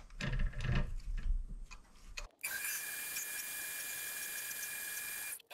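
A Vevor 7x14 mini lathe facing off a shoulder on a steel part. First come a couple of seconds of faint, irregular clicks and scrapes as the carriage is worked. Then, starting abruptly, the lathe runs with a steady, high-pitched whine and hiss.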